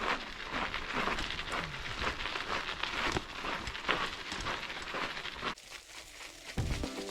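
Footsteps crunching on a gravel trail, a steady crackle of small clicks that stops about five and a half seconds in. Background music comes in near the end.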